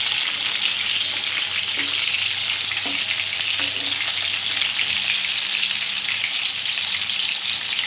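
Chicken seekh kababs sizzling steadily in hot oil as they shallow-fry in a pan, with a few faint scrapes of a metal spatula as they are lifted out.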